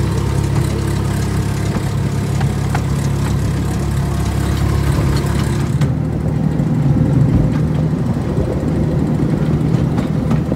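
Miniature railway train running along its narrow-gauge track, with a steady, loud engine drone from the small locomotive hauling the carriages.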